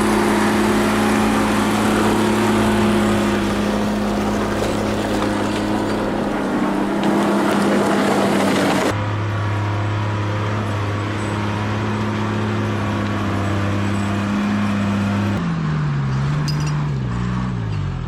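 An engine running at a steady speed, with an abrupt change in sound about halfway through. Near the end its note falls and wavers as it slows.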